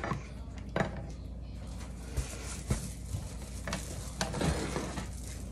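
Plastic serving spoons knocking and scraping against a baking dish and a metal serving tray: a handful of light, separate knocks spread through, over a steady low hum.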